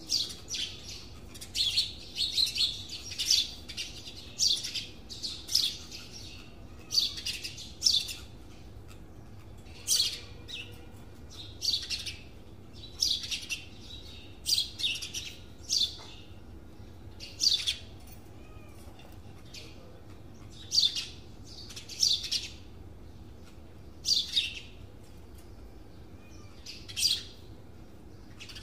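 Small birds chirping: short, high chirps in irregular clusters, with a few pauses of a second or two.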